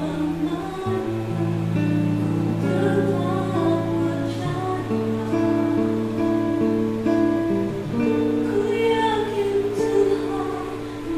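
A woman singing a slow worship song over instrumental accompaniment, with long held notes.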